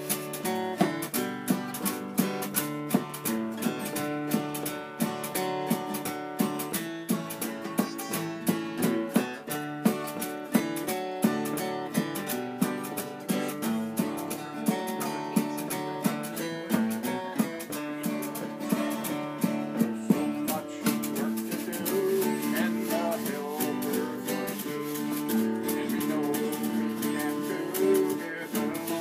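Acoustic guitar strummed in a steady rhythm, playing a song.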